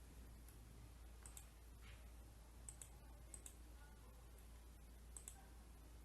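Faint computer mouse clicks, several in quick pairs like double-clicks, over quiet room hum.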